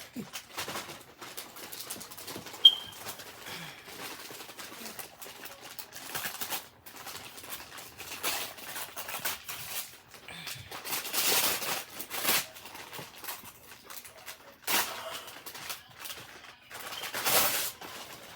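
Paper and plastic gift packaging rustling and crinkling in a series of bursts as a present is unwrapped, with one sharp click a few seconds in.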